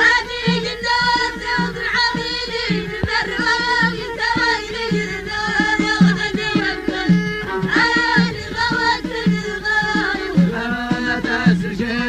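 Moroccan Amazigh (Berber) folk song: singing and a melodic line over a steady percussion beat.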